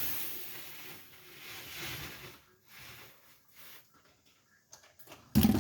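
Handling noise: rustling and a few small clicks and knocks. Near the end comes a loud thump as the recording camera falls over.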